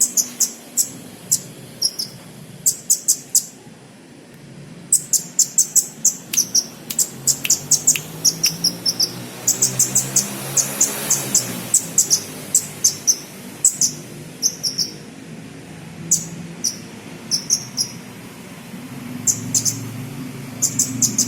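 A sunbird ('kolibri') singing its learned cricket-like song: rapid trains of short, high chirps, each run a second or less, repeated again and again with brief pauses.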